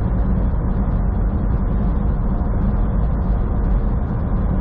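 Semi truck cruising at highway speed, heard from inside the cab: a steady low engine drone mixed with tyre and road noise.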